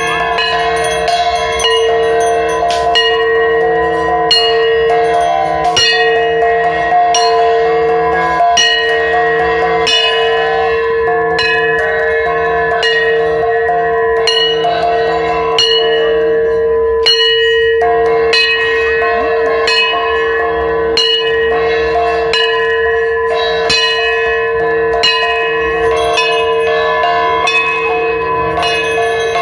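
Ringing bell music over a steady held drone, with bell strokes struck roughly once a second.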